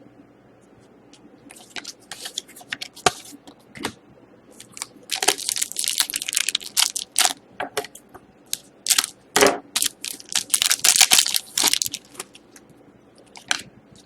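Crinkling and rustling of a trading-card pack wrapper and cards being handled: a run of short crackly bursts, sparse at first and thickest in the middle.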